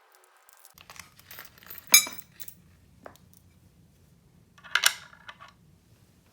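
Handling noises from soldering-station parts and packaging: a sharp clink with a brief ring about two seconds in, a crinkling rustle near five seconds, and a few light taps.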